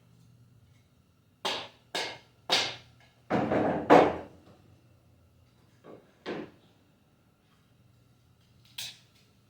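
Hammer blows on a wooden cabinet door, knocking apart a joint that is glued firmly. Five hard strikes come between about one and a half and four seconds in, the last the loudest, then a few lighter knocks.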